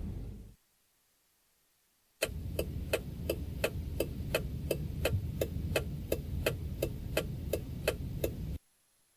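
A stock sound effect of steady, rapid ticking, about three and a half ticks a second, over a low rumble. It starts about two seconds in and cuts off abruptly near the end. It is clock-like.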